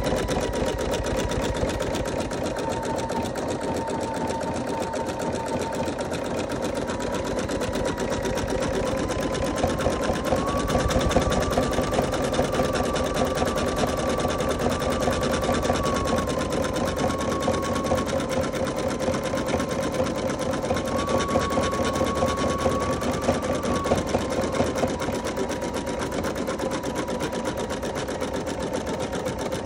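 Computerized embroidery machine stitching a design into a quilted pot holder, its needle running in a fast, even rhythm with a steady motor hum that rises slightly in pitch for a few seconds twice, around ten and twenty seconds in.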